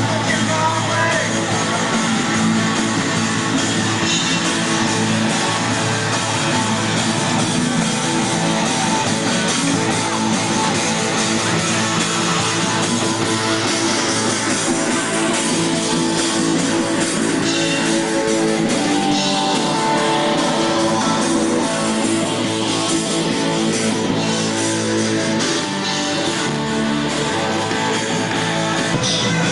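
Live rock band playing loudly: electric guitar over a drum kit, with no break.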